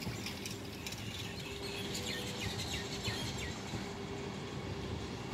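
Vande Bharat Express electric multiple-unit train running slowly as it approaches: a steady rumble of wheels on rails with a constant hum, and a run of short high chirps about halfway through.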